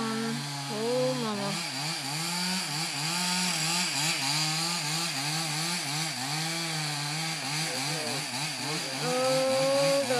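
Chainsaw running while cutting into a tree, its engine pitch wavering up and down as it loads and revs, then climbing to a higher, louder rev about nine seconds in.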